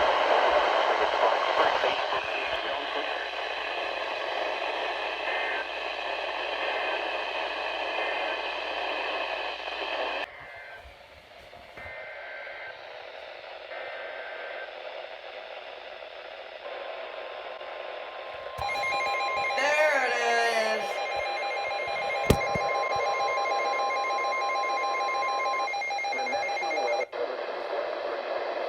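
Weather radio receiver hissing with static, which drops suddenly about ten seconds in. About two-thirds of the way through, a steady single-pitch alert tone sounds for roughly nine seconds, typical of the NOAA Weather Radio warning alarm tone that comes before a warning message. A short falling warble and one sharp click sound over the tone.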